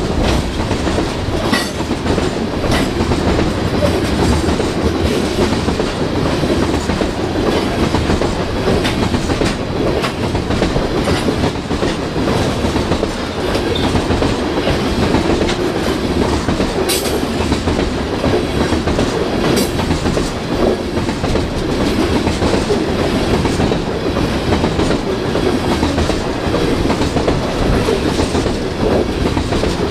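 CPKC freight train's cars rolling past: a steady rumble of steel wheels on rail, with irregular clicks and clacks.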